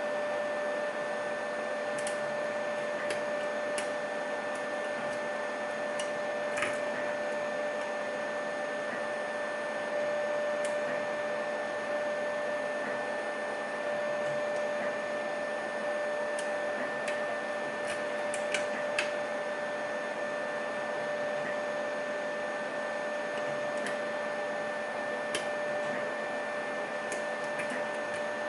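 A steady mechanical hum with two held whining tones, with scattered faint clicks of metal lock picks working the pins of a pin-tumbler lock.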